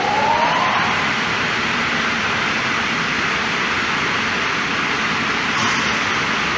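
Perun BG-35/55 multi-saw edging machine starting up: a motor whine rises in pitch and levels off about a second in, then the machine runs with a loud, even noise.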